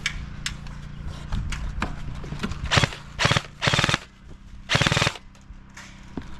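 Airsoft gun firing four short rapid bursts about three to five seconds in, the longest lasting under half a second.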